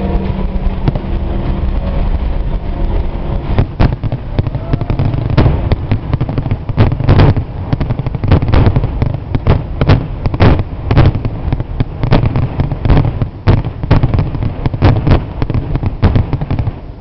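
Fireworks going off: a steady low rumble, then from about three and a half seconds in a dense, irregular barrage of sharp bangs, several a second.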